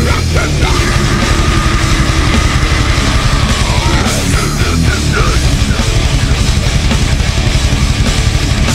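Heavy metal band recording: distorted guitars over fast, dense drumming, with a long held high note that bends down about four seconds in.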